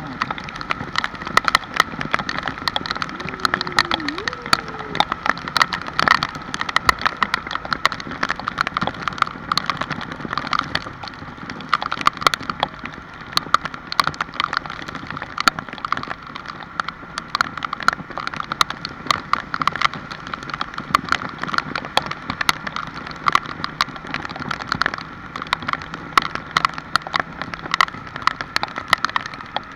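Raindrops falling on a hard surface close by: many quick, irregular taps over a steady high-pitched tone.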